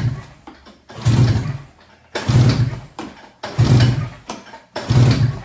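Arctic Cat Mountain Cat snowmobile engine turned over by its recoil pull-starter, five hard pulls about a second and a quarter apart, each a short whirring burst. The engine cranks without firing, at wide open throttle, for a compression test with a gauge screwed into the spark-plug hole.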